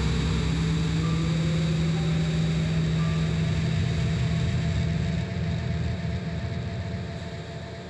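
Engine of the Batpod, the motorcycle-like vehicle from the Batman films, running as a film sound effect: a steady low drone whose pitch rises over the first couple of seconds. It fades out over the last few seconds.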